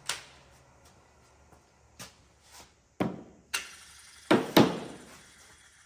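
A string of separate sharp knocks and clunks of things being handled in a workshop, the loudest two in quick succession about four and a half seconds in.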